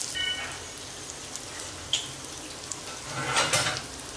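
Paneer cubes sizzling and crackling as they shallow-fry in butter in a nonstick pan, with a louder swish of a spoon moving them about three seconds in.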